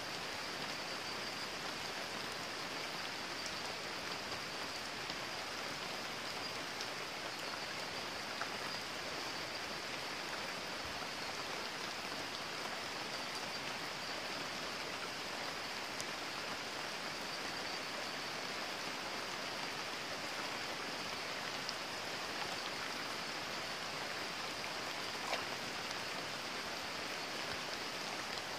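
Heavy rain falling, a steady even hiss with a few sharp drop ticks, over the running water of a shallow creek.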